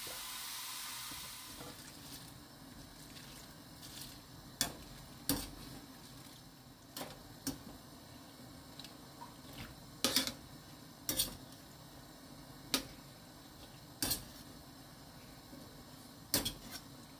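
A metal skimmer knocks against the side of a stainless steel pot as cabbage is stirred and turned in boiling water: about ten sharp, irregular clinks. Before them, in the first second or so, there is a hiss from the boiling water that fades away.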